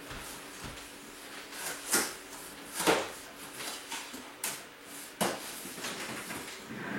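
A few sharp knocks and bumps, four louder ones spread over a few seconds, from cardboard moving boxes being handled and set down in an emptied, echoing room.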